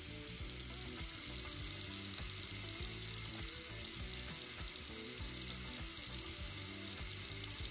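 Bathroom sink faucet running a thin, steady stream of hot water into the basin and drain, a constant hiss.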